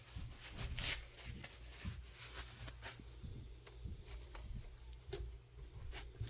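Light clicks and rattles of a 3/8-pitch saw chain being handled and worked onto a chainsaw's drive sprocket, the clearest click about a second in.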